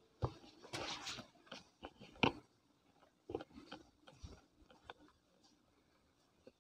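Faint, irregular clicks, knocks and a brief rustle from someone moving about with a handheld camera. They are closer together in the first two and a half seconds and sparse after that.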